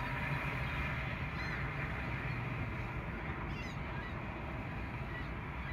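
Mixed flock of ring-billed and herring gulls calling, a steady chatter with a few sharper calls standing out, over a low rumble.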